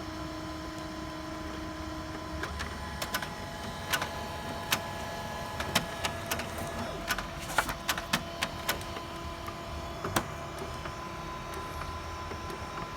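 HP Color LaserJet printer mechanism running with a steady tonal hum that changes about two and a half seconds in, amid many scattered clicks and knocks.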